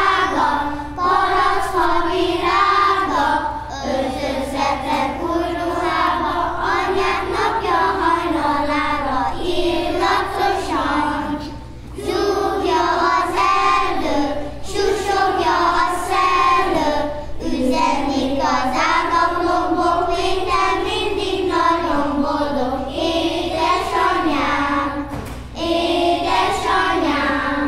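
A group of young children singing a song together in unison, phrase by phrase with short breaks for breath.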